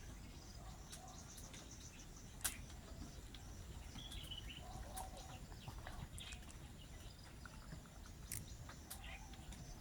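Faint outdoor ambience with a steady low background rumble and scattered short bird chirps. A few sharp clicks come through, the loudest about two and a half seconds in.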